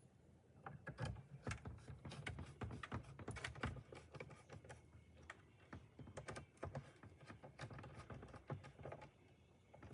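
Faint, irregular small clicks and taps of hands fitting a replacement backup camera: plugging its connector back in, clipping the camera into place and fastening it with two Phillips screws.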